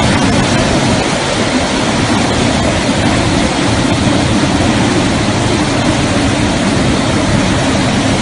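Hurricane-force wind with driving rain: a loud, steady rush with no let-up.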